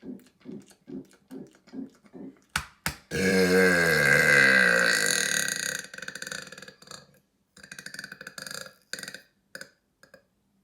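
A man's long, loud burp lasting about two and a half seconds, its pitch sliding down, trailing off into a crackly rumble. It comes after a run of short rhythmic throat sounds at about two a second and two sharp clicks.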